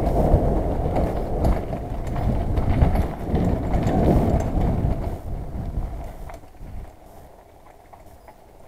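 Mountain bike ridden fast along a dirt forest trail: tyre rumble and wind on the microphone, with rattling knocks from the bike over bumps. It gets steadily quieter from about five seconds in.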